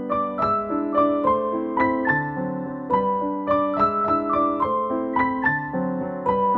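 Background piano music: a flowing line of single notes, about three a second, over lower sustained notes.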